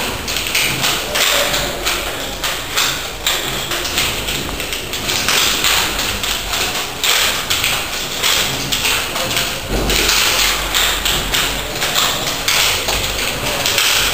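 Rapid, irregular slaps and swishes of hands and forearms striking and brushing against each other and the sleeves during fast solo Jeet Kune Do hand drills, several per second, with a heavier thud about ten seconds in.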